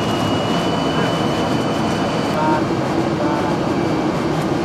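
Steady drone of aircraft engines and rushing air heard from inside an aircraft cabin in flight, with a thin steady high tone above it.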